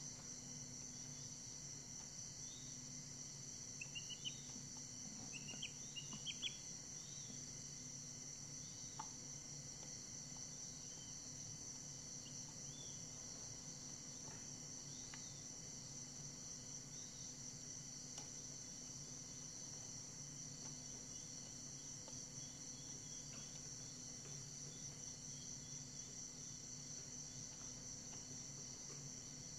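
A steady, shrill, high-pitched drone with a low hum underneath, and a few faint, short chick peeps about four to six seconds in.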